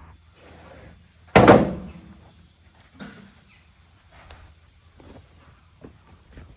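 A single heavy thump about a second and a half in, ringing out briefly, followed by a few faint knocks.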